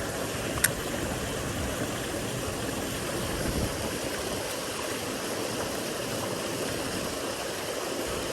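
Mountain creek water running steadily over rocks, an even rushing sound. A single sharp click comes about half a second in.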